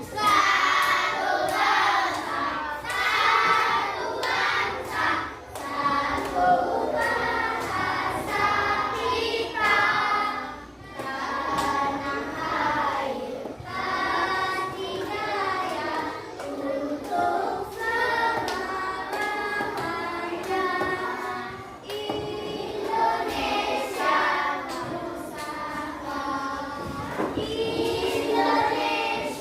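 A class of primary-school children singing a song together in unison, with hand claps.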